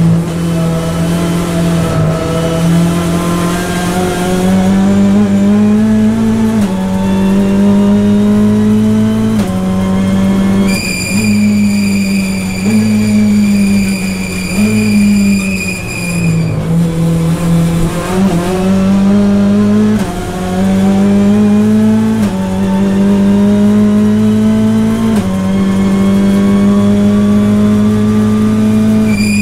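Hyundai i30 N TCR race car's turbocharged four-cylinder engine heard from inside the cockpit at racing speed, revving up and stepping down in pitch at each gearshift through braking and acceleration. A high steady whine joins for several seconds in the middle.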